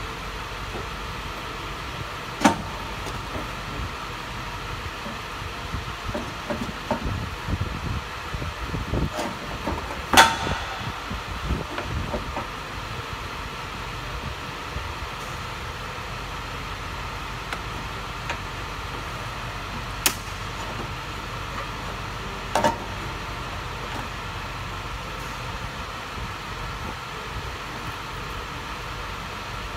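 Knocks and clanks of an aluminium charge air cooler and its mounting hardware being handled and fitted into place: a few sharp knocks, the loudest about ten seconds in, with a stretch of rattling handling noise around it, over a steady background hum.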